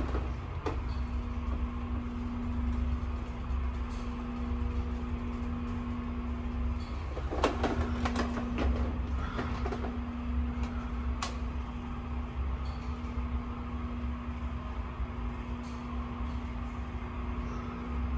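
Historic Otis hydraulic freight elevator travelling between floors: a steady hum over a low rumble, with a cluster of metallic clicks and rattles about seven to nine seconds in and one sharp click a couple of seconds later.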